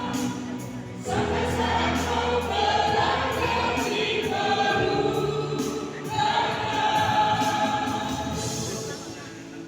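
A church choir singing in parts, with new phrases entering about a second in and again about six seconds in, then fading near the end.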